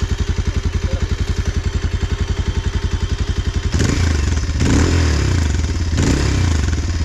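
Bajaj Pulsar 220F's 220cc single-cylinder, oil-cooled engine heard at the exhaust silencer, idling with an even, rapid beat. About four seconds in it is revved with repeated throttle blips that rise and fall in pitch.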